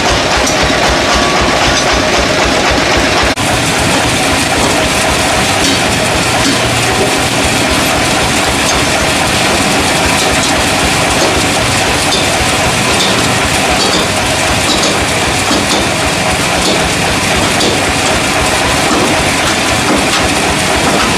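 Sawmill machinery running with a loud, steady rattling mechanical noise, briefly dipping about three seconds in.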